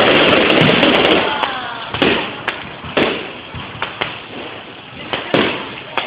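Aerial fireworks bursting: a dense crackling shower of sparks about the first second, then a series of separate sharp bangs and pops spaced roughly half a second to a second apart.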